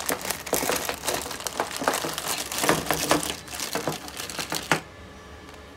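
Clear plastic zip-top bag crinkling and rustling as a hand works a plumbing fitting out of it. The crackling is irregular and stops abruptly near the end, leaving quiet room tone.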